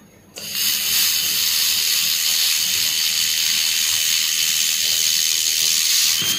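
Handheld fiber laser welding gun welding 2 mm aluminium: a loud, steady, high-pitched hiss switches on abruptly about a third of a second in and cuts off near the end, with a faint steady whine inside it. The hiss is typical of shielding gas blowing from the welding nozzle while the laser fires.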